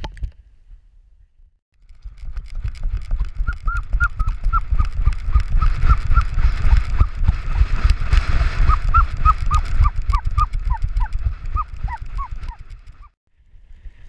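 Harness-mounted camera jostled as the dog runs: rapid low thumping and rumble. Over it comes a string of short, falling, high-pitched animal calls, about two a second.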